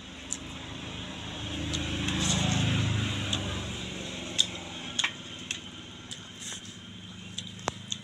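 Someone eating curry and rice by hand from a steel plate: chewing and mouth smacks, with a few sharp clicks in the second half. Under it a low engine hum from a passing vehicle swells and fades over about three seconds in the first half.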